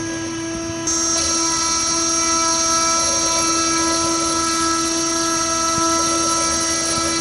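DIY gantry CNC mill running, a steady machine whine made of several fixed tones, typical of a spindle and stepper motors. About a second in it gets louder and a high hiss joins.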